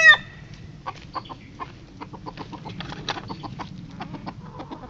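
A backyard chicken flock clucking softly with many short clicks. The tail of a loud rooster crow cuts off just after the start.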